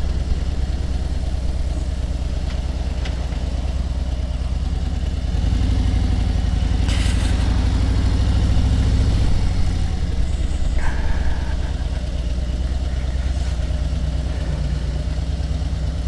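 Motorcycle engine running on the move with a steady low note. It grows louder from about five seconds in and eases back again near ten seconds.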